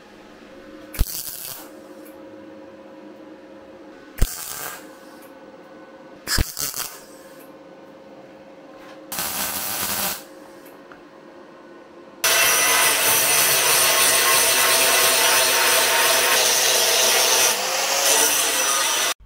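Workshop tool work: three sharp knocks, each with a brief burst of tool noise, and a short one-second burst. Then a power tool runs steadily and loudly for about seven seconds and cuts off abruptly.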